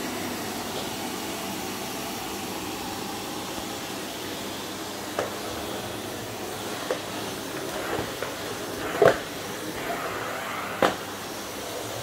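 Vacuum cleaner running with a steady hum. Several short knocks sound over it, the loudest about nine seconds in.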